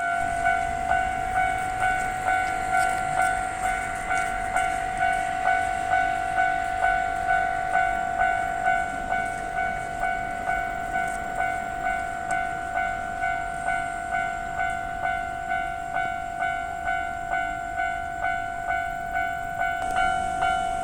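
Japanese railway level-crossing warning bell ringing, an electronic clanging tone repeating about twice a second without a break, while a train passes over the crossing.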